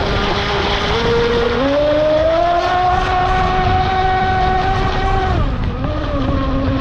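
Radio-control model boat's motor running hard on the water, over a steady rush of water and wind. Its pitch climbs about a second and a half in, holds high, then drops a little after five seconds as the throttle eases.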